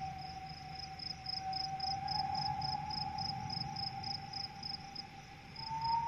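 A cricket chirping in a steady rhythm, about four short high chirps a second. Beneath it a sustained tone slowly rises in pitch over a low hum.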